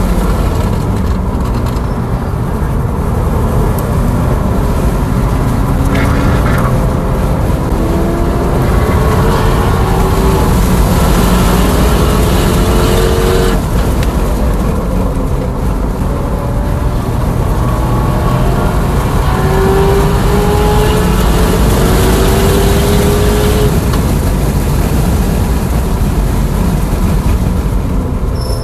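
Tesla Model S Plaid at track speed: loud wind and tyre roar, with the electric motors' whine rising in pitch twice as the car accelerates, the first rise cutting off suddenly.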